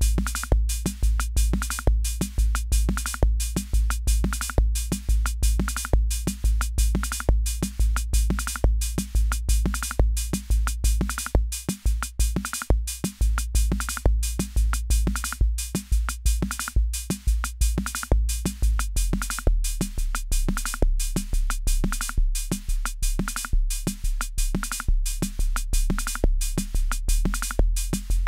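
Akai Rhythm Wolf drum machine playing a steady looping pattern of kick and hi-hat hits. A sustained deep bass note runs under the beat and drops to a lower pitch about two-thirds of the way through.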